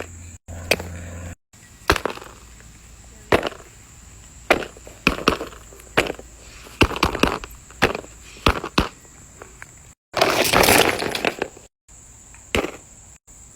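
Fidget toys being handled: a string of sharp clicks, snaps and pops, with a dense crackling stretch about ten seconds in, broken by several abrupt cuts.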